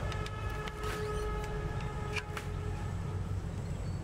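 A steady, level horn-like tone with overtones holds for about three seconds from the start, over a continuous low rumble, with a few faint clicks.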